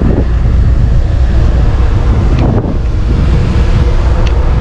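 Strong wind buffeting the microphone on the open deck of a ferry under way at sea, a loud steady rumble over the rush of the sea.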